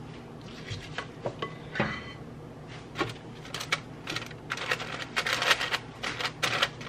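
A spoon clinking and scraping in a mixing bowl, then wax paper crinkling as lumps of apple fritter batter are pressed down on it in an air fryer basket, with a denser run of crinkling in the second half.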